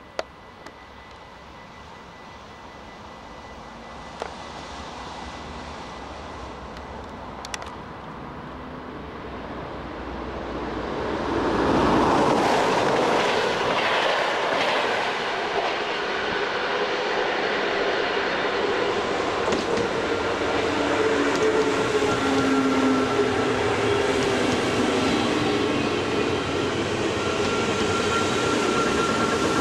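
NS electric passenger train approaching and running past along the platform. Its rolling noise builds steadily to a loud peak about twelve seconds in, then continues as steady wheel-on-rail noise and rail clatter, with a few sharp clicks early on and steady whining tones in the second half.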